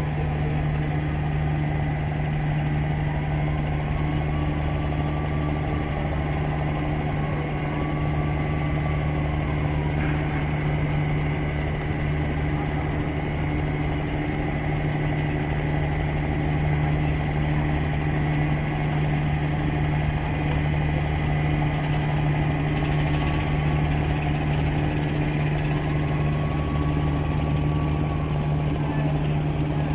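Steady low drone of a river passenger launch's engine running at an even pace.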